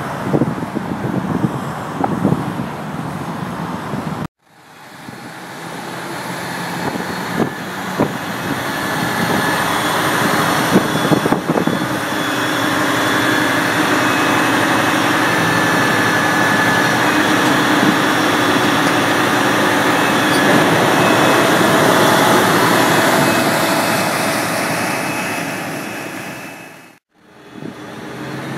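Highway traffic noise, which cuts out briefly about four seconds in. Then a steady mechanical drone with a high whine swells over several seconds and holds: the heavy-duty tow truck's engine driving its winch as the overturned dump truck is pulled from the ditch.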